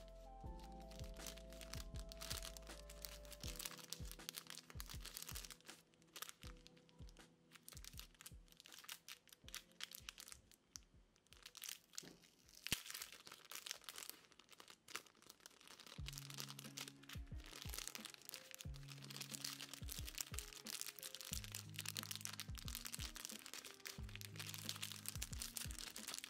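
Clear plastic packaging sleeve crinkling and crackling as it is handled and turned, in dense irregular clicks, over soft lofi background music with held low bass notes.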